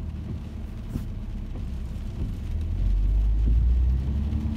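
Car engine and road rumble heard from inside the cabin, growing louder about three seconds in as the car pulls away.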